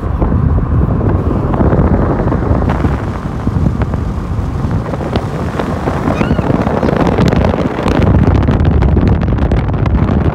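Wind buffeting the microphone at a moving car's window, over steady road and engine noise, growing louder about eight seconds in.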